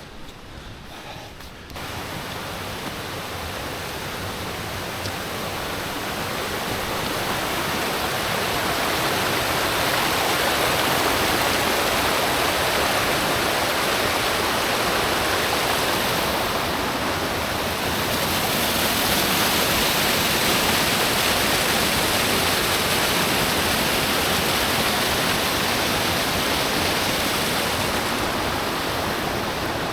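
Rushing water of a mountain stream or waterfall, a steady even roar that starts suddenly about two seconds in and swells over the next several seconds, then holds.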